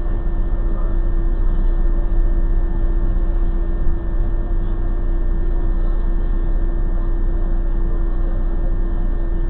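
Steady low rumble and hum of a stationary vehicle idling, with one constant steady tone running through it, as heard from inside the cab.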